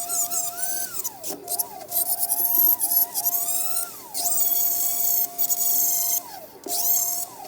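Vevor 780W flex shaft grinder carving wood. Its high whine rises and falls again and again as the speed is changed with the foot pedal, with brief drops where the bit eases off.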